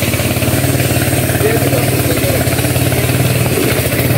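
Passenger van's engine idling, a steady low hum with fast even pulses.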